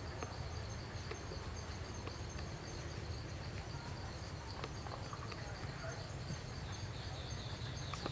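Forest ambience with insects chirping in an even, rapid pulsing rhythm at a high pitch, over a steady low rumble.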